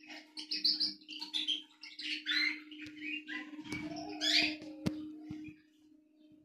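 A young caged finch singing its first tentative notes: a run of short chirps and warbles that stops about a second before the end, over a steady low hum.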